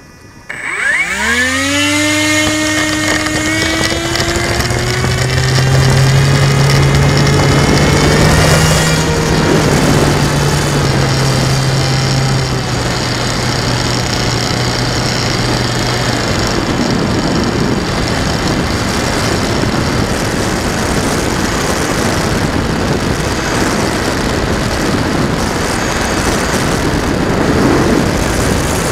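A UAV 3000 model plane's motor throttles up about a second in, and its whine rises steadily in pitch as the plane takes off. Wind noise rushing over the onboard microphone then builds and covers the motor.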